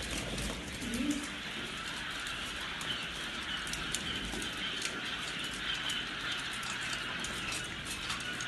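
A flock of young quail chicks chirping continuously: a dense, steady chatter of many overlapping high peeps.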